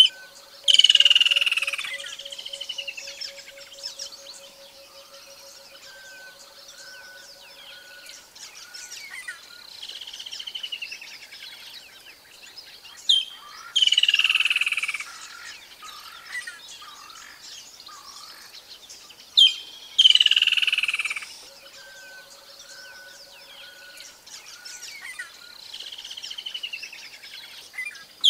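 Bushveld ambience: loud, harsh, falling wild-bird calls repeated every several seconds, over a low, steady pulsing trill in the first eight seconds that returns about twenty-two seconds in.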